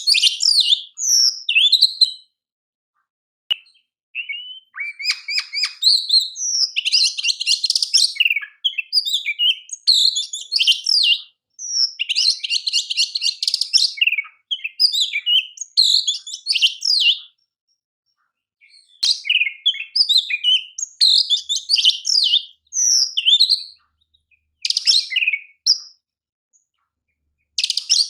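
Oriental magpie-robin (kacer) singing: varied high whistled phrases mixed with fast buzzy trills, coming in bursts separated by short pauses.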